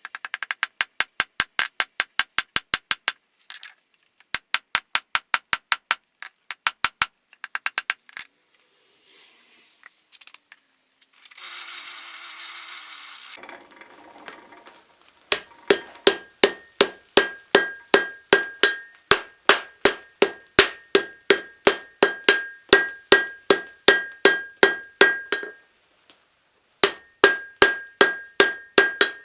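Hand-forging hammer blows on steel at the anvil, in quick even runs of about four to five strikes a second, later slowing to about three a second. The later blows ring with a clear metallic tone. A few seconds of scraping noise come midway between the runs.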